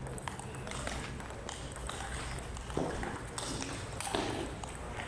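Table tennis rally: the ball clicking back and forth off paddles and table in short sharp knocks.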